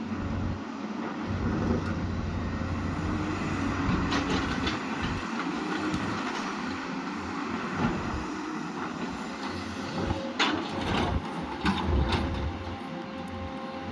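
Excavator engine running under load while it works, with a few sharp clanks of the bucket on rock about ten to twelve seconds in.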